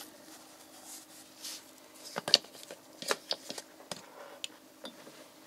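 Nitrile-gloved hands handling a plastic oil bottle: rubbing and rustling with a series of sharp clicks and taps, the loudest about two seconds in and a cluster a second later. A faint steady hum runs underneath.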